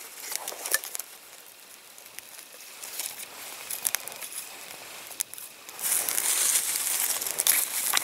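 Small campfire of dry sticks and twigs crackling with scattered sharp pops as it catches, with sticks being laid on it; the crackling grows louder about six seconds in.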